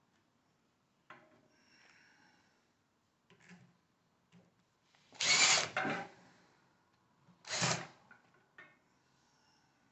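Cordless drill-driver running in two short bursts, the first about a second long and the second shorter, backing out screws from the cover of a Bafang geared hub motor, with light handling knocks before them.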